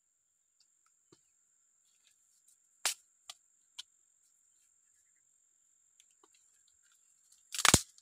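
Dry stalks being handled and broken for firewood: a sharp crack about three seconds in, two smaller clicks soon after, and a louder, longer crackling snap near the end. A steady high insect trill runs underneath.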